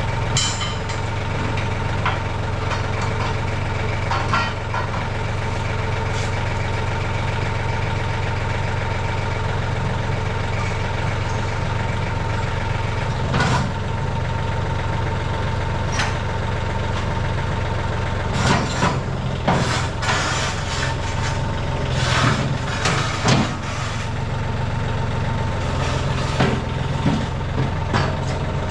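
An engine running steadily at idle, with scattered sharp knocks and clanks over it, most of them bunched in the second half.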